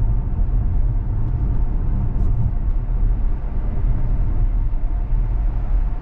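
Steady low road rumble heard inside the cabin of a Tesla Model X on the move: tyre and road noise from the electric car, with no engine note.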